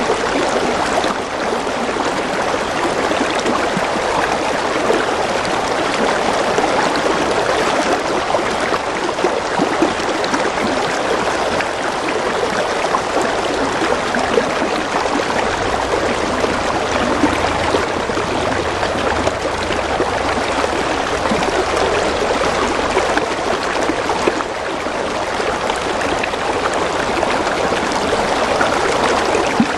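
Steady rain falling, a dense, even hiss without a break.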